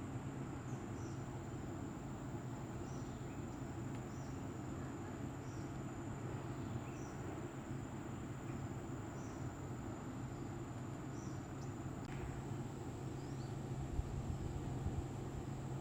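Steady high-pitched insect drone, with short high chirps repeating about once a second over a low, steady rumble.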